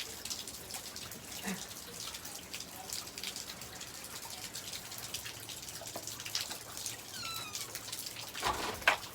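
Rain mixed with snow coming down, with steady hiss and many small drips and taps on surfaces. A short squeak falling in pitch comes about seven seconds in, and a louder burst of noise near the end.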